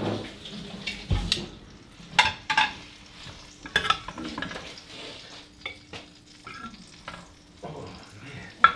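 Plates and serving utensils clinking and clattering in short scattered knocks as food is dished out onto plates, over a steady kitchen hiss.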